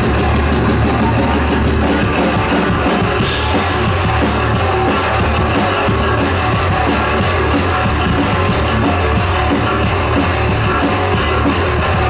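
Thrash metal band playing live through an instrumental passage: distorted electric guitars, bass and a pounding drum kit, loud and dense throughout. The cymbals open up brighter about three seconds in.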